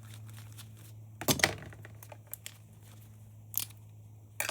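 Clicks and rustles of a security camera's circuit board and plastic parts being handled, the loudest cluster about a second in and shorter clicks later, over a steady low electrical hum.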